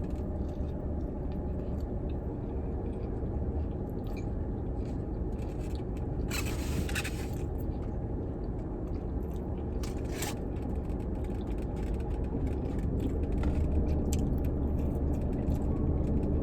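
A person biting into and chewing a fast-food sandwich inside a car, over a steady low hum in the cabin. Two brief rustling noises come about six and ten seconds in.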